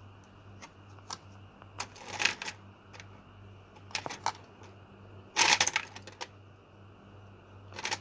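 DDR4 laptop RAM sticks (SO-DIMM modules) clicking and clattering against each other and a plastic tray as a hand sorts through them: scattered light clicks, with the loudest clatter a little past the middle and another near the end, over a faint low hum.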